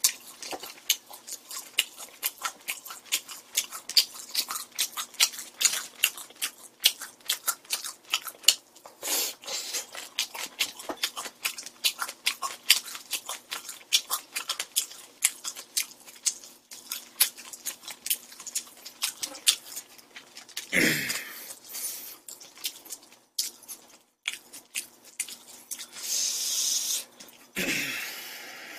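A person eating close to the microphone: many quick, irregular wet chewing smacks and mouth clicks, with two louder, longer mouth noises about two-thirds of the way through and near the end.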